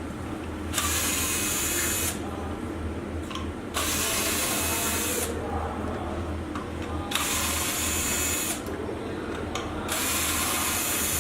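Electric screwdriver running in four short bursts of about a second and a half each, with pauses between them: the screws holding an LED display panel's power supply being driven out.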